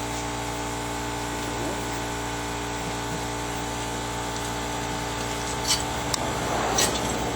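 Steady machine hum made of several constant tones. Near the end come a few sharp clicks and a short clatter.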